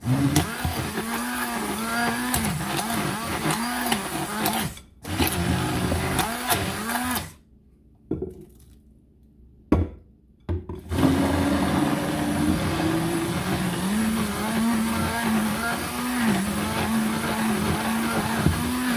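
T-fal Turbomix hand blender running in a bowl of thick corn-cake batter, its motor pitch dipping and recovering about once a second as the blade meets the mix. It cuts out briefly just before five seconds, runs again, and then stops for about four seconds before starting up again and running on.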